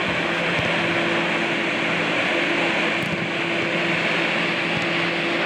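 Steady hum and rushing noise of the inflation blowers that keep an air-supported sports dome up, running evenly.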